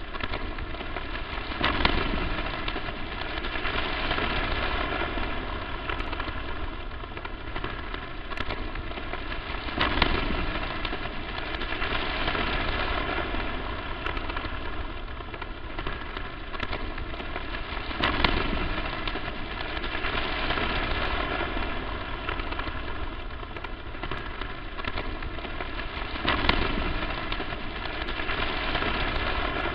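Crackling static noise, a dense hiss with fine crackles that swells louder about every eight seconds.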